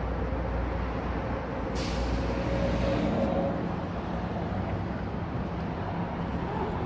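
Steady street traffic noise: a low engine hum throughout, with one short hiss about two seconds in.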